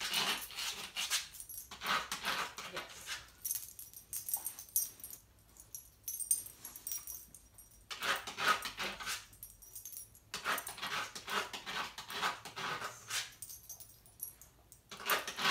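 A dog's claws scratching a nail-filing board, in rasping bouts of two to three seconds with pauses between.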